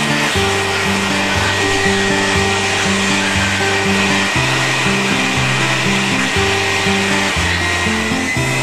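Vacuum cleaner running steadily with a high whine, under background music with a stepped bass line.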